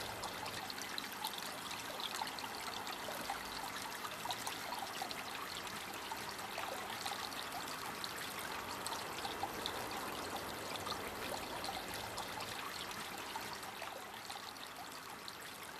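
Garden fountain's water jets spraying and splashing steadily, a continuous watery hiss flecked with many small droplet splashes.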